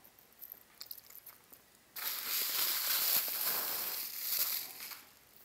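A few faint clicks of jewellery being handled, then about two seconds in, bubble wrap crinkling loudly for nearly three seconds as it is unwrapped from a rhinestone necklace.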